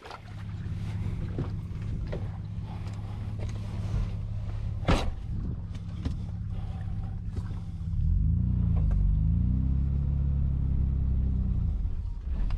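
A four-wheel-drive's engine running, heard from inside the cab as it drives on sand. About eight seconds in it gets louder and its pitch rises and falls as the driver revs it, easing off near the end; a single sharp click sounds about five seconds in.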